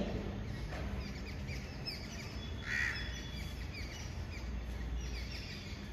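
Small birds chirping in the background, with one louder bird call about three seconds in, over a steady low hum.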